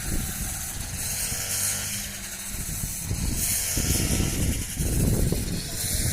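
A small vehicle engine running, with clattering rattles over a steady low hum. It grows louder in the second half.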